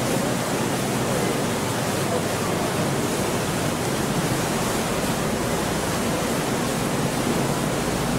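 Steady rushing noise aboard a moving canal tour boat, with no distinct knocks or tones.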